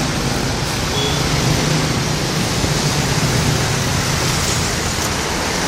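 Bus engine idling: a steady rushing noise with a low hum underneath.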